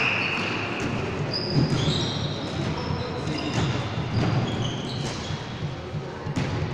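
Basketball game on a hardwood gym floor: sneakers squeak sharply several times as players run and cut, with a few sharp knocks of the ball and a loud one near the end, over a steady echoing hall din.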